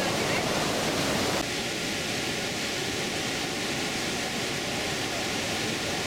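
Niagara River rapids: fast whitewater rushing over rocks, a loud, steady rush of noise. About a second and a half in it drops a little in level and then carries on unchanged.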